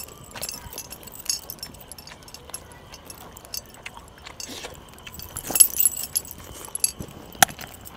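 Scattered light metallic jingles and clicks from chunky metal bracelets and a steel plate as food is scooped up by hand, with a sharp click near the end.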